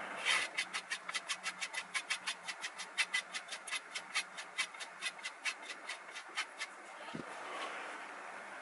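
Kitchen knife blade stroked quickly back and forth along a wooden hand strop, about five light strokes a second, with one soft thump near the end. This is hand stropping to take off the burr that machine stropping can leave on the edge.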